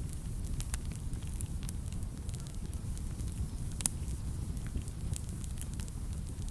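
Wood fire burning in a fireplace: a steady low rumble of flames with scattered sharp crackles and pops, the loudest pop about two thirds of the way through.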